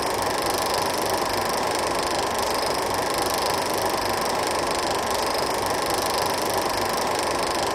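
16mm film projector running steadily: an even, unchanging mechanical noise with a faint low hum.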